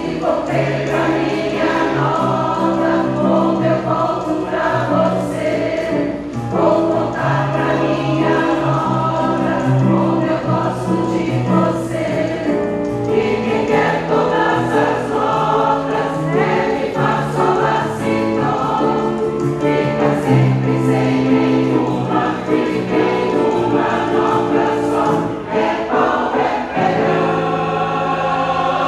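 Mixed amateur choir singing a song in several voice parts, accompanied by an electronic keyboard.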